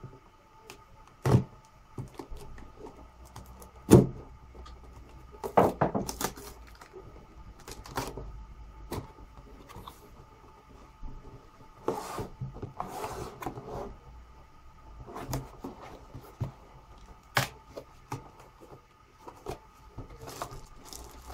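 A cardboard product box being opened by hand: sharp snaps as diagonal cutters snip through the box's seal, the two loudest about one and four seconds in. Then come scraping and crinkling of cardboard flaps and plastic-wrapped contents, over a faint steady hum.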